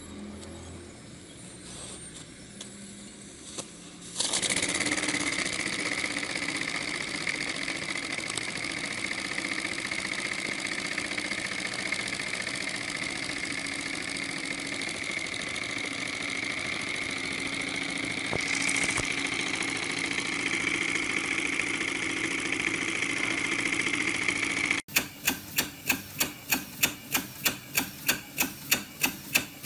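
Mini V-twin model steam engine, quiet at first, then about four seconds in it suddenly starts running with a steady high-pitched whir and hiss. Near the end a small side-crank model steam engine takes over, chuffing in a steady rhythm of about four exhaust beats a second.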